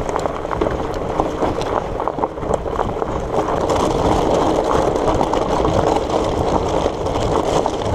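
Surly Moonlander fat bike rolling along an old railway bed, its wide tyres going from grassy track onto loose ballast stone: a steady rolling noise with many small clicks and rattles of gravel.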